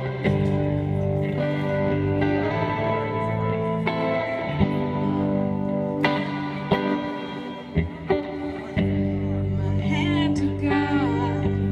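A band playing live: guitar chords ringing over a steady backing, with a few sharp drum hits and a brief softer stretch before the full sound comes back.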